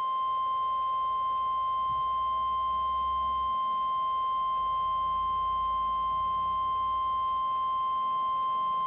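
Weatheradio Canada's 1050 Hz warning alarm tone: one steady high beep held unbroken, the signal that a weather warning, here a severe thunderstorm warning, is about to be broadcast.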